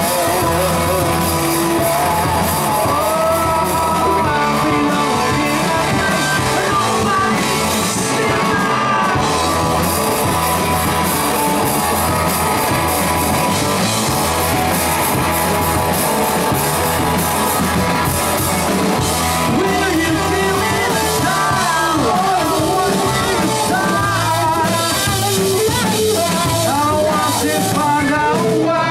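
Indie rock band playing live: electric guitars, bass guitar and drums, with a man singing into a microphone.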